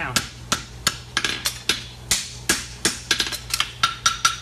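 Farrier's hammer striking a horseshoe on the anvil to bend the toe, a fast run of about three to four blows a second, with the anvil ringing on the later blows.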